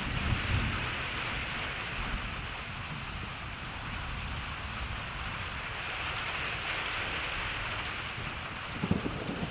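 Steady rain falling, an even hiss of drops on surfaces. A brief low rumble of thunder comes in the first second, and a few short low thumps come near the end.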